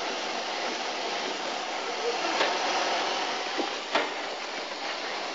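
Steam hissing steadily from a wrecked steam locomotive, with two sharp knocks about two and a half and four seconds in.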